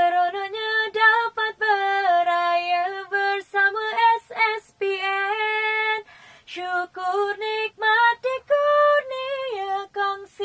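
A woman singing solo without accompaniment: a run of held notes that step and slide between pitches, with a short pause for breath about six seconds in.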